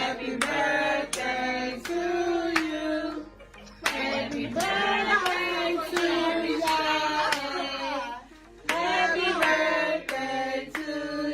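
Background music: a song with a sung vocal over a sharp clap-like beat, about one and a half beats a second, dropping out briefly twice.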